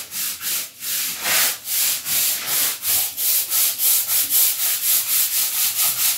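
Stiff-bristled long-handled broom scrubbing a rough masonry wall in quick back-and-forth strokes, about three a second, each a scratchy swish.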